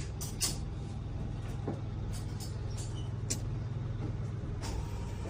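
Steady low engine rumble with a few scattered clicks and knocks; a faint steady tone comes in near the end.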